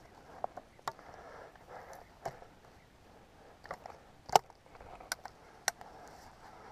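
Footsteps rustling through dry grass, with several sharp metallic clicks from a break-action double-barrelled shotgun being opened and handled. The loudest click comes about four seconds in.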